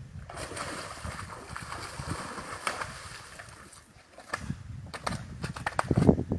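Water splashing and sloshing, with scattered knocks and a louder low thump near the end.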